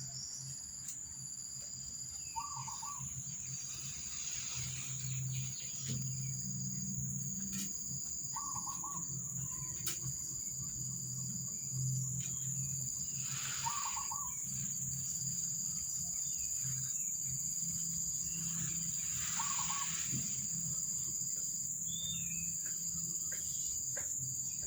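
Outdoor background with steady high-pitched insect trilling that pulses in a regular rhythm, and a short call repeating about every five to six seconds, over a low hum.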